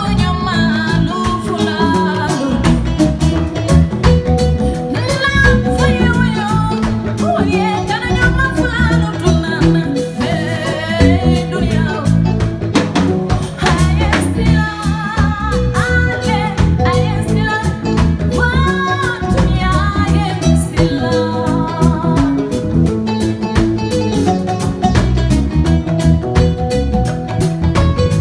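Live West African band music: a woman sings a melody over kora, bass guitar, drum kit and hand drums, with a dense, steady rhythm.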